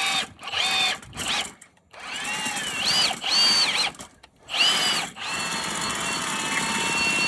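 Milwaukee M18 Fuel Super Hawg cordless drill driving a sectional drain-cleaning cable, its motor whining up and down in short trigger pulses, then held at a steady high whine from about five seconds in.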